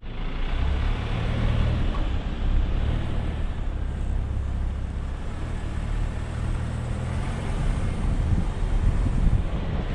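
Toyota Tacoma pickup driving on a dirt road: a steady low engine drone with tyre and road noise, breaking up and growing rougher about seven seconds in.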